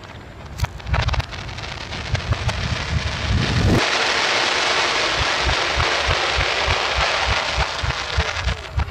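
Fireworks played backwards: scattered reversed cracks and bangs, then about four seconds in a dense crackling hiss starts suddenly and keeps going, with quick low thumps under it.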